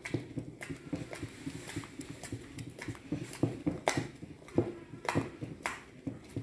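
Wooden stirring stick knocking and scraping against the side of a bowl as thick liquid soap is stirred, with irregular knocks about two a second.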